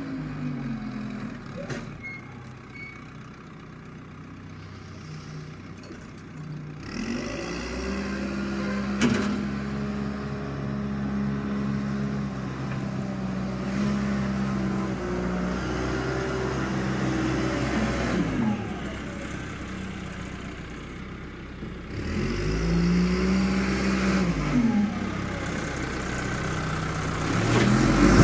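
John Deere 310 backhoe loader's diesel engine running, revving up twice under load and dropping back to idle. There is one sharp knock partway through.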